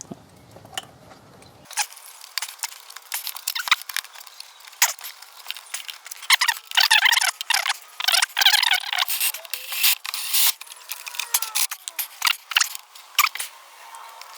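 Metal hose clamp being handled and fitted onto a washing machine's pump hose: irregular clicks, scrapes and rattles of metal parts, with a few busier scraping stretches.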